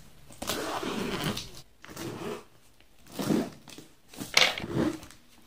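A knife slitting open a parcel's packaging, with tearing and crinkling of the wrapping: one long cut, then three shorter ones.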